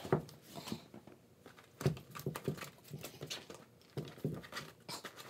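A kitten scuffling against a fabric pet bed on a tile floor, clawing at the cloth: irregular short scratches and soft knocks.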